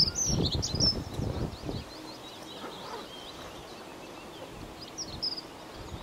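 A small songbird singing: a fast, scratchy warble of high notes, with a short high phrase again about five seconds in. A low rumbling noise underlies the first two seconds.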